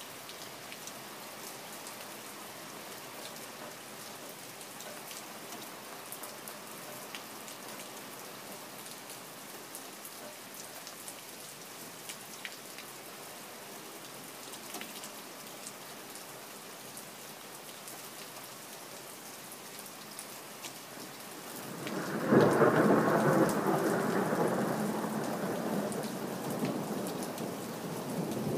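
Steady rain falling and pattering on a surface, with scattered drop ticks. About 22 seconds in, a loud rolling rumble of thunder breaks in suddenly and slowly dies away over several seconds, swelling again near the end.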